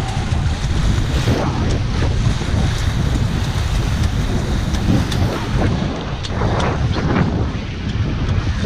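Wind buffeting the microphone as a steady low rumble, over the rush and splash of water spraying along the hulls of a Hobie Cat catamaran sailing at about 20 km/h.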